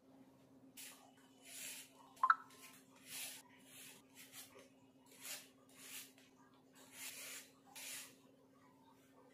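Y-peeler scraping the skin off red carrots in repeated short rasping strokes, about one a second, with a sharp click a little over two seconds in. A faint steady hum underneath.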